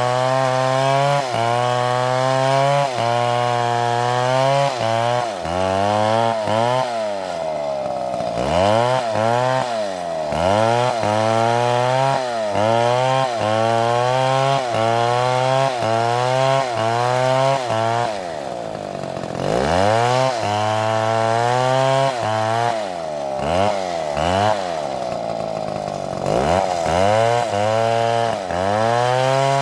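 Chainsaw running under load while cutting wood, its engine pitch dipping and recovering in a steady rhythm about once every second. Twice, about a third of the way in and again about two-thirds in, the engine note drops well down and climbs back.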